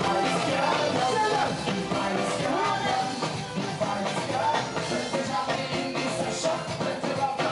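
Live band music with singing: several vocalists over a full band with electric guitar, played loud through the stage PA.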